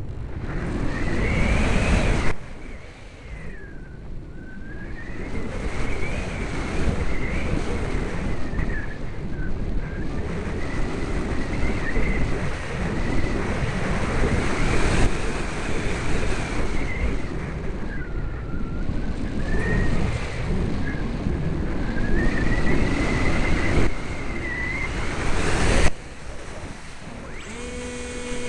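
Wind rushing over the microphone, with the whine of the Sky Surfer RC plane's electric motor and propeller running through it and slowly rising and falling in pitch. The rush drops off suddenly twice, about two seconds in and near the end.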